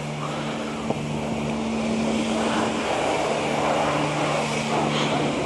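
Steady hum of a self-service car wash's high-pressure pump, with the hiss of a spray lance washing a car in a neighbouring bay.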